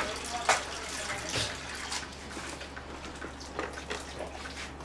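Water running from a kitchen tap, with a few light knocks and clinks of things being handled on the counter.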